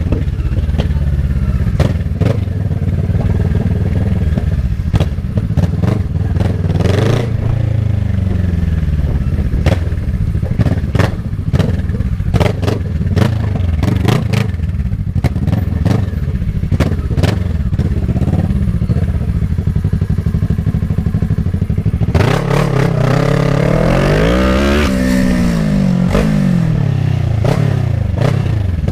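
Kawasaki ER-6n's parallel-twin engine running while riding in traffic, with frequent short clatters over it. Near the end the engine revs up hard and then falls back.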